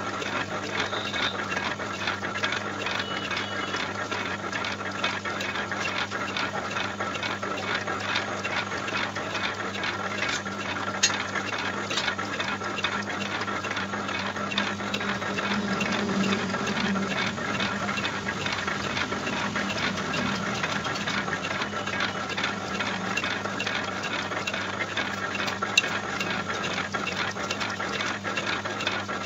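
Lathe boring the inner bore of a cast-iron rotavator hub held in the chuck: a steady machine hum with a dense, fast rattle from the boring bar cutting, and a few sharp clicks partway through.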